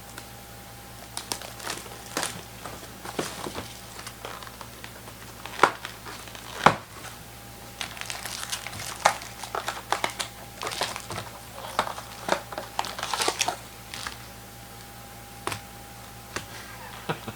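Trading-card pack wrappers crinkling and crackling as packs are opened and cards handled, in irregular clusters, with two louder sharp snaps about six seconds in.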